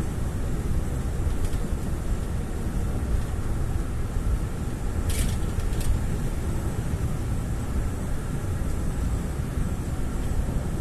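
Steady road noise of a car being driven: a low rumble of engine and tyres on the pavement, with two brief sharp clicks about five and six seconds in.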